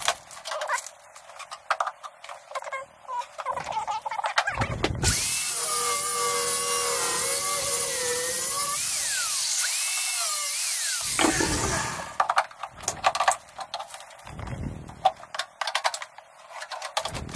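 A battery-powered DeWalt power tool runs for about seven seconds, starting about five seconds in, its motor pitch wavering and gliding up and down with the trigger and the load while it works on the aluminum boat. Before and after it come scattered clicks and clinks of tools and loose metal being handled.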